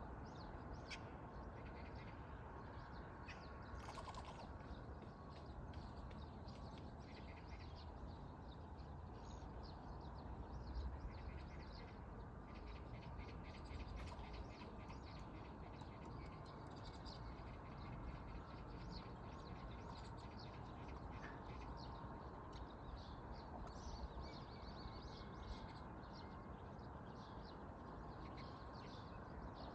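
Birds chirping and calling again and again over a steady rush of wind and outdoor ambience.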